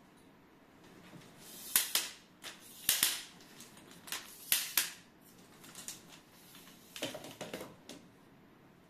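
Aluminium photo tripod being set up: its leg locks snap open and shut in a run of sharp clicks, several in quick pairs, as the leg sections are extended. About seven seconds in comes a rattly clatter as the legs are spread and set down on the floor.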